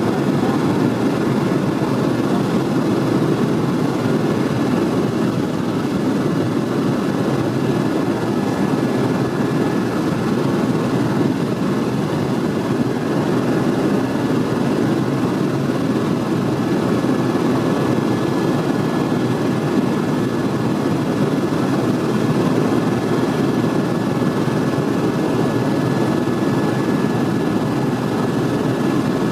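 Helicopter in flight, heard from inside the cabin: a steady, unchanging engine and rotor drone with a thin steady whine above it.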